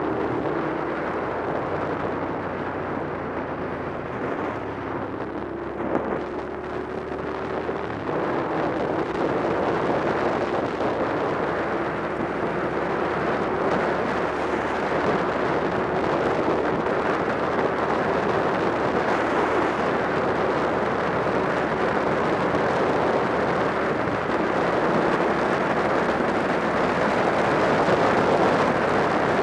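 Motorcycle engine running steadily at riding speed, heard from the bike with heavy wind rush over the microphone; it gets louder about eight seconds in.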